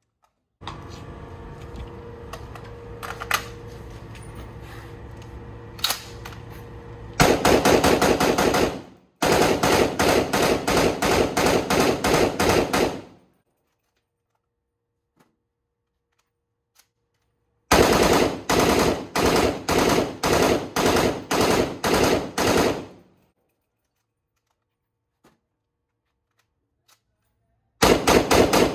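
POF CW39, a G3-pattern 7.62×51 mm roller-delayed battle rifle, firing full-auto in long bursts of several seconds each, four in all, the last still going at the end. A steady hum comes before the first burst, and a few faint clicks fall in the pauses.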